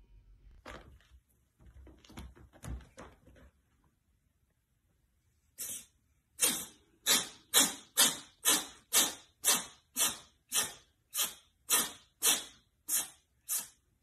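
A cat sneezing over and over in a fast fit: about fifteen sharp sneezes, roughly two a second, starting about halfway through. A few fainter short sneezy sounds come in the first few seconds.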